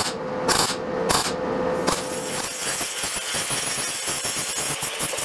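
MIG welder firing a handful of short welding bursts on a steel sheet-metal patch panel, about half a second apart, then an angle grinder grinding the steel steadily from about two seconds in.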